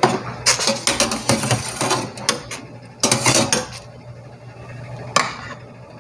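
Metal spoon and wire mesh strainer scraping and clinking against a stainless steel pot as briefly cooked squid is stirred in water and scooped out. The clattering comes in clusters, with one sharp knock a little after five seconds.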